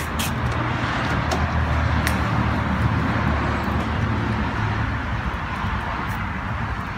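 Road traffic: a passing vehicle's engine and tyre noise, a steady rushing sound that builds over the first few seconds and eases off toward the end, with a few light clicks near the start.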